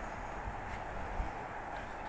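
Steady outdoor city background hum, with distant traffic and no train passing.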